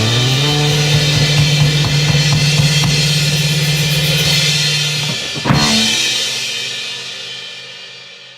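Ending of a rock song: a held low note slides up at the start under busy drumming with cymbals, then one last big hit about five and a half seconds in, and the ringing fades out.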